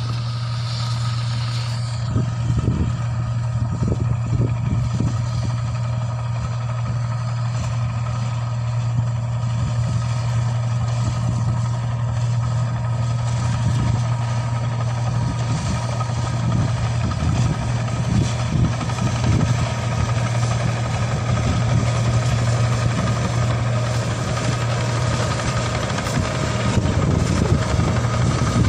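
Tracked rice combine harvester's engine running steadily as the machine travels along a dirt track: a deep, even drone with a few faint steady higher tones above it, growing a little louder near the end as it comes closer.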